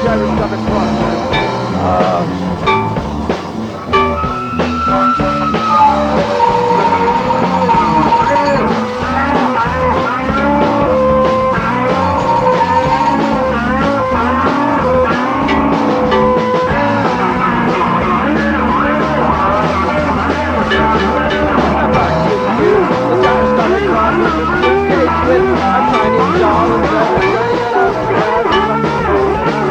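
Psychedelic rock music: a dense instrumental passage with guitar over a steady beat.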